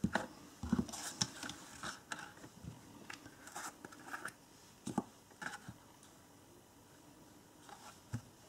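Light handling of a clear plastic embossing powder tray and card stock on a craft mat: scattered taps, clicks and paper rustles, mostly in the first five seconds and then near-quiet.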